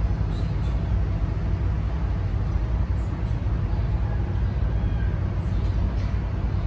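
A steady low rumble, even in level throughout.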